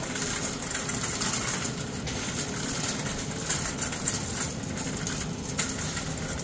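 Empty wire shopping cart pushed across a hard store floor: the wheels rolling and the basket rattling continuously, with many small irregular clicks.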